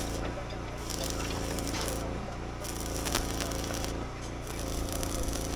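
Electric arc welding on a steel rebar footing cage: the rod's arc gives a steady crackling sizzle that breaks off briefly about two seconds in and again about four seconds in, over a steady low hum. These are light tack welds, meant only to hold the cage in place until the concrete is poured.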